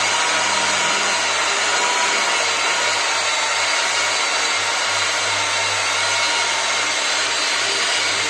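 Handheld electric car polishing machine running steadily, its foam pad spreading car wax over a painted panel.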